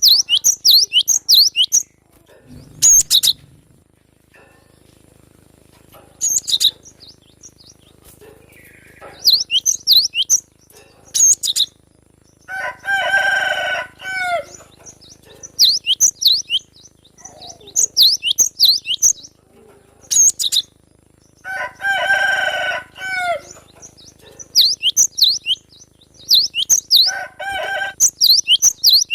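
Cinereous tit (gelatik batu) singing in loud bursts of rapid, sharp, high whistled notes, each burst a second or two long with short pauses between. Twice, around the middle and again a little later, a longer, lower, buzzier call stands out.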